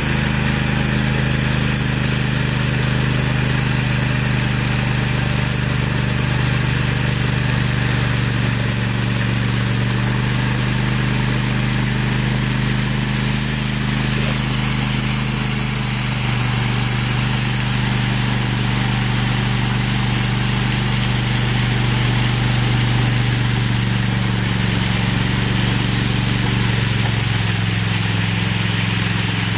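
Ride-on power trowel with float pans running steadily on fresh concrete, its engine note dropping slightly near the end.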